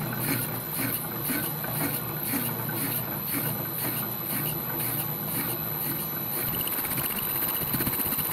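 Slitting saw turning slowly in back gear on a Holbrook C8 lathe, cutting a slot into a steel clamp block: a steady cutting noise with a faint pulse about two to three times a second. Near the end a fine rapid chatter joins in, the chatter and squeal the cut made at the start at the lowest speed.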